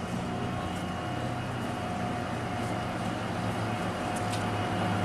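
Diesel locomotive idling: a steady low engine hum with a constant whine above it, slowly growing louder.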